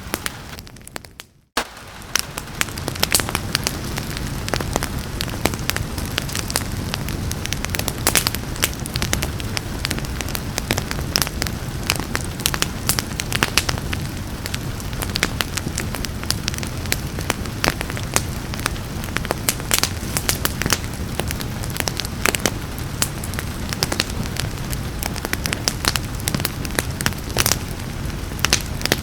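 Wood fire crackling with frequent sharp pops over a steady hiss of rain. The sound drops out briefly about a second in, then fades back up.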